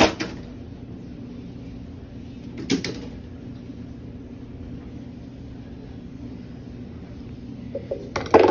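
Steady low kitchen hum with a few sharp knocks: one at the start, one just under three seconds in, and a quick cluster near the end as handling of the roasting pan and chicken begins.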